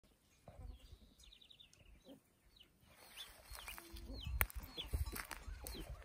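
Birds calling: a quick run of rapid high notes about a second in, then short hooked chirps repeating every half second or so. Under them are footsteps thudding on dirt, with a few sharp snaps.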